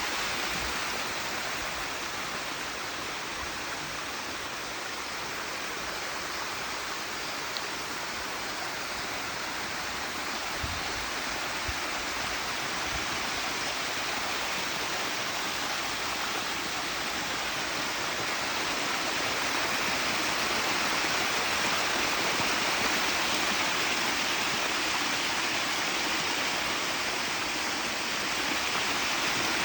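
Artificial waterfall's water pouring over a big rock, a steady rushing splash that swells slightly in loudness about two-thirds of the way through.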